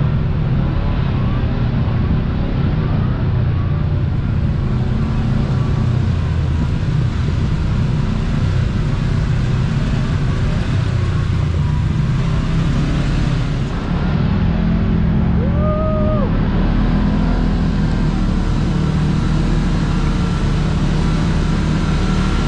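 Kawasaki Teryx KRX 1000 side-by-side driving along a trail: its parallel-twin engine drones steadily under the noise of the ride. A brief pitched tone of about a second sounds about two-thirds of the way through.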